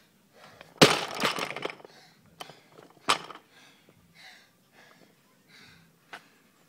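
Barbell with bumper plates dropped from overhead onto a rubber mat: a loud crash about a second in with rattling for about a second after, then a second sharp knock about three seconds in. Hard breathing follows between reps.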